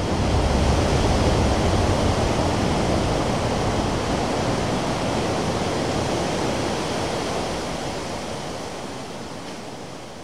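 Ocean surf breaking on a sandy beach: a steady wash of waves that fades down over the last few seconds.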